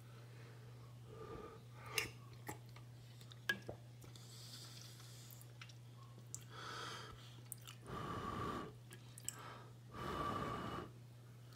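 A person eating soup from a spoon. First come a few sharp clinks of the metal spoon on the ceramic bowl, then chewing and mouth noises in three longer swells, the loudest two near the end. A steady low hum runs underneath.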